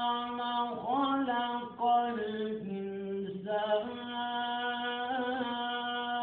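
Quranic recitation in a slow melodic chant: a single voice holds long, ornamented notes that step down in pitch near the middle and rise back again, with brief breaks between phrases.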